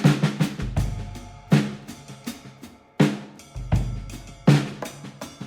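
Background music: a drum-kit beat with snare and bass drum hits over low sustained bass notes.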